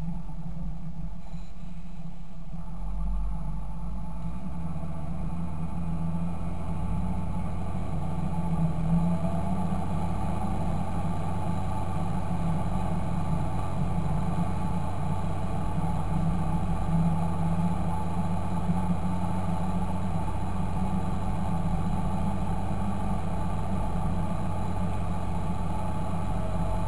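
Fendt Favorit 926 tractor's six-cylinder diesel engine running steadily, its low hum growing stronger about four seconds in.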